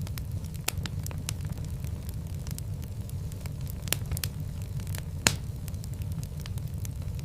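Wood fire burning in a fireplace: a steady low rumble of flames with irregular sharp crackles and pops, the loudest pops at about four and five seconds in.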